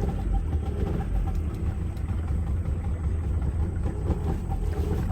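Boat's outboard motor running steadily, a low continuous rumble with a faint steady hum above it.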